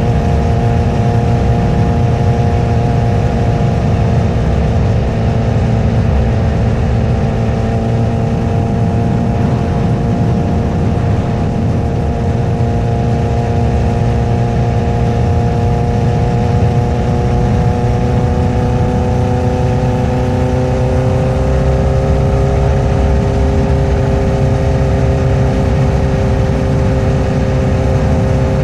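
2008 Honda CBR1000RR's 999cc inline-four running at a steady cruise, its exhaust note holding an even pitch that shifts slightly about two-thirds of the way through, over heavy low-pitched rushing noise.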